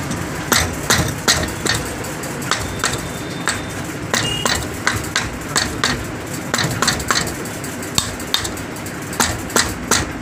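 Light metallic hammer taps on a Karizma R motorcycle crankshaft, driving it down into its crankcase bearing: sharp taps in short runs of about three a second. The crank is a tight fit.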